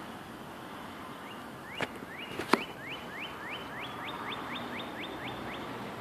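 A songbird singing a run of about a dozen quick up-slurred whistles, about three a second, each a little higher than the last. Two sharp clicks come about two seconds in, the second the loudest sound.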